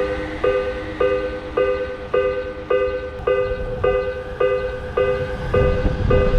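Japanese railroad crossing warning bell ringing, its electronic 'kan-kan' strike repeating evenly just under twice a second, over a low rumble.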